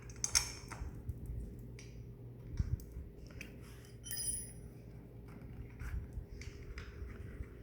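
Small metallic clicks and clinks from screws and a tightening tool being handled and turned during assembly, with one brief ringing clink about four seconds in. A steady low hum runs underneath.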